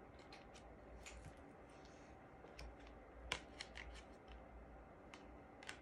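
Faint clicks and ticks of Wizards Tarot cards being handled and turned over, a handful of small snaps scattered through, the sharpest about three seconds in.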